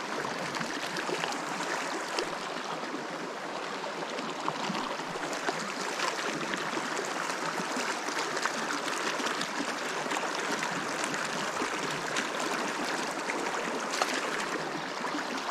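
River water running with a steady, even rush.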